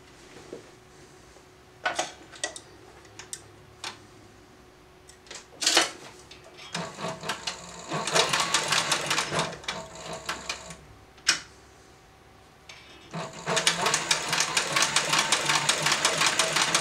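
Heavy-duty cylinder-arm leather sewing machine, fitted with a holster plate and feed dog, stitching through thick leather in a rapid run of needle strokes. A few sharp clicks come first. The machine runs from about seven seconds in, stops near eleven seconds, then starts again faster and louder about thirteen seconds in.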